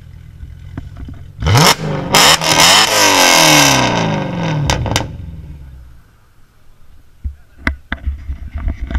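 Supercharged Audi S5 with an HMS aftermarket exhaust idling, then revved hard several times about one and a half seconds in, the pitch shooting up and falling back, before settling. A few sharp knocks follow near the end.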